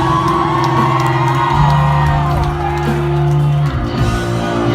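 Live rock band playing amplified through a venue PA, with held guitar and bass notes and a crowd shouting and whooping over them.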